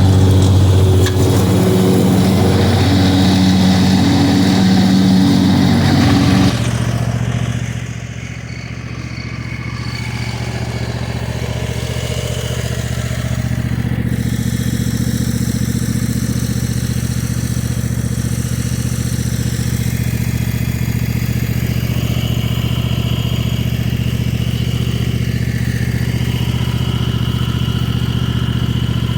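A motor running steadily. About six seconds in, the sound changes abruptly, dips, then settles into a lower, even hum.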